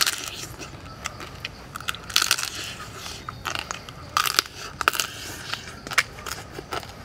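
Roasted crab shell cracking and crunching between teeth as it is bitten and chewed, with a series of sharp, irregular cracks, the loudest at the start and around two and four seconds in.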